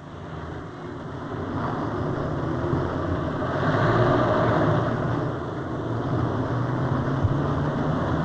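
Motor vehicle engine and road noise, fading in over the first few seconds and then running steadily with a low hum.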